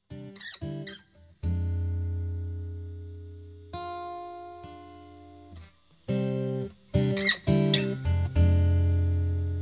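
Intro music of strummed guitar chords: quick strums near the start and again about seven seconds in, with long chords in between left to ring and fade.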